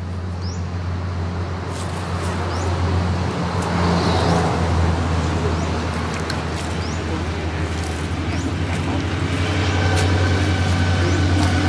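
Steady low engine-like rumble with water splashing as a hooked snakehead thrashes and is scooped into a landing net; music fades in near the end.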